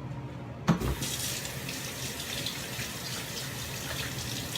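Kitchen sink tap turned on with a short knock under a second in, then water running steadily while fingers are rinsed of seasoning and oil.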